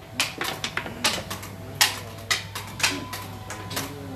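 Xiangqi disc pieces clacking down onto a wooden board and against one another, with a chess clock button pressed: a string of sharp, unevenly spaced clicks.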